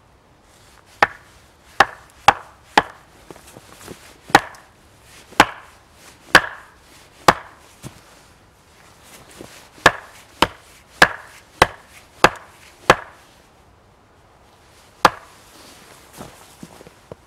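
Hultafors hatchet striking a wooden stake: about fifteen sharp knocks in uneven runs, with two short pauses, one about 8 seconds in and one about 14 seconds in.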